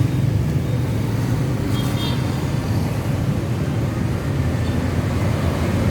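Steady rumble of road traffic, with a short high-pitched chirp about two seconds in.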